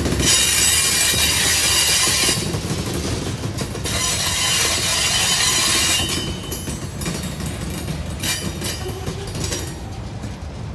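Freight cars rolling past on steel wheels, with two stretches of high-pitched wheel squeal in the first six seconds, then a quieter rumble with scattered clacks of wheels over the rail joints.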